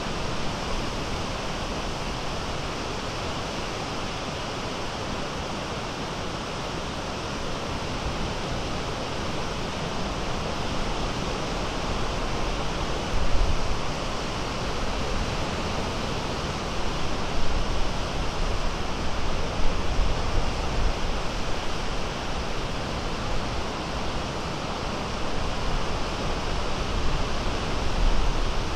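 Small Great Lakes waves breaking and washing toward shore: a steady surf hiss. From about halfway through, gusts of wind rumble unevenly on the microphone.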